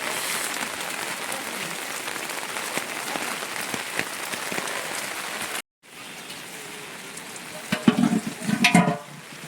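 Heavy rain falling steadily. About two-thirds of the way in it cuts off for an instant and returns lighter, and near the end a brief loud voice breaks in over it.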